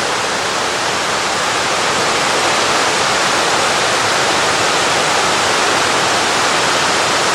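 Steady rush of water from a mountain stream running over bare rock at a slide waterfall (namedaki), an even, unbroken noise with no other sounds standing out.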